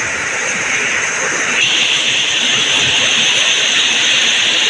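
Heavy tropical rain pouring down in a steady hiss, which gets louder and brighter abruptly about a second and a half in.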